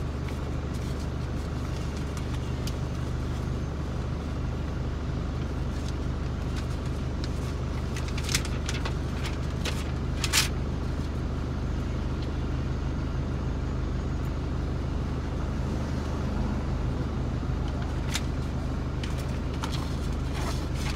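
Car engine idling while stopped in traffic: a steady low hum, with a few short sharp clicks, the loudest about ten seconds in.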